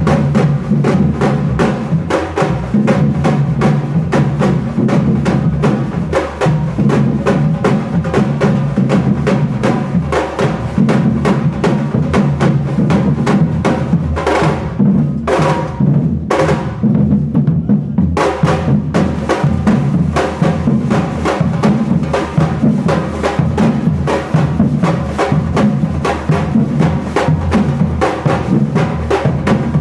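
A drum ensemble playing a fast, driving rhythm on bass drums and snares. About halfway through the dense playing drops to a few spaced hits for a few seconds, then the full group comes back in.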